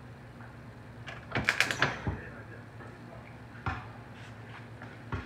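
Stud welder zapping pull studs onto a car's steel door panel: a quick run of four or five sharp clicks about a second and a half in, then single clicks later on, over a steady low hum.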